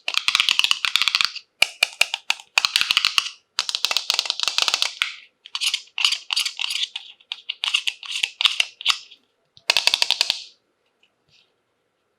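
Crinkling plastic packaging being handled and unwrapped, in repeated bursts of dense crackling about a second long with short pauses between, stopping shortly before the end.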